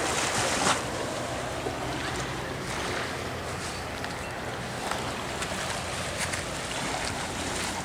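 Steady wash of wind on the microphone and lapping water, with the low, steady hum of a motorboat engine out on the water.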